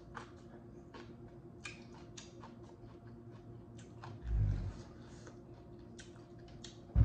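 Close-miked eating sounds of a person chewing seafood: scattered wet clicks and lip smacks, with a low thud about four seconds in and a sharp knock at the very end.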